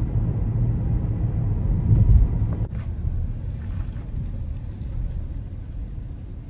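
Low road and engine rumble of a moving car, heard from inside the cabin, with some wind on the microphone. It breaks off at a cut a little under three seconds in and then comes back quieter, fading gradually.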